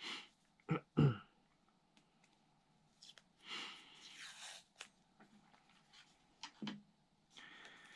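Masking tape being peeled off its roll, a rasping rip about three seconds in and again near the end, with small handling ticks. Two short knocks about a second in.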